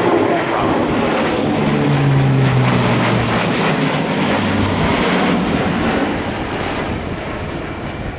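Airbus A400M's four Europrop TP400 turboprop engines and propellers droning in a low pass. The propeller tone drops in pitch as the aircraft goes by, then the sound fades as it climbs away.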